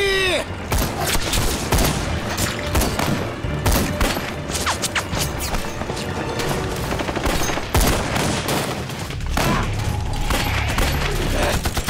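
Sustained gunfire: many rapid, overlapping shots and volleys, dense throughout with a few heavier reports among them.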